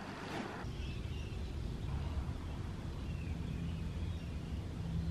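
Outdoor ambience: a low rumble with faint bird chirps, and a steady low hum coming in about three and a half seconds in.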